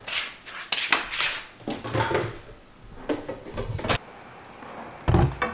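Cookware being handled on a gas stove: a pot and pan knocking and scraping against the grates in a run of short clatters, with a low thump about five seconds in.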